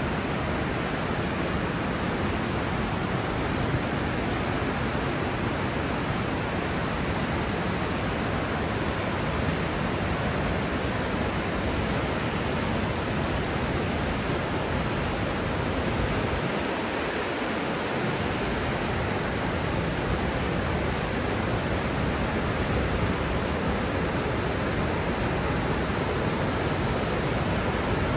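Class 6 whitewater rapids of the Niagara River rushing: a steady, even rush of water noise at a constant level. The deepest rumble briefly thins about seventeen seconds in.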